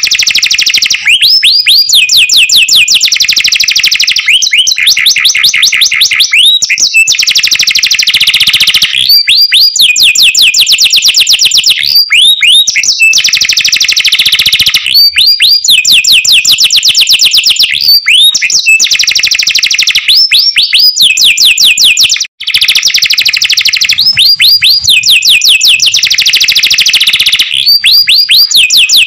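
Domestic canary singing loud, fast trills: long phrases of rapidly repeated high notes, each broken off by a brief pause every couple of seconds before the next phrase starts.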